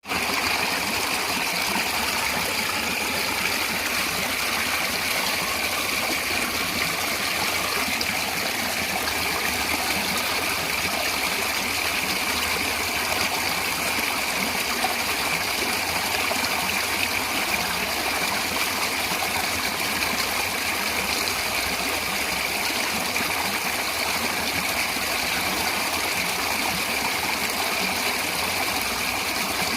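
Natural running water flowing steadily, an even, unbroken rush that never changes.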